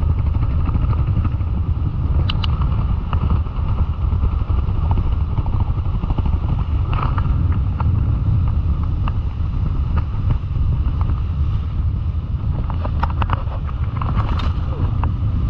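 Wind buffeting the microphone over breaking surf, a steady low rumble. Near the end there are a few sharp splashes as the shark is put back into the shallow water.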